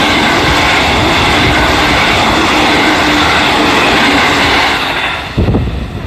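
JR Central 313 series electric multiple unit passing close by, a loud steady rush of wheels and running gear on the rails that drops away about five seconds in as the last car clears and the train moves off.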